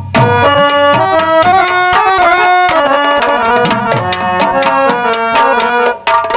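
Harmonium playing a song melody over dholak and naqqara drums beating a steady, quick rhythm.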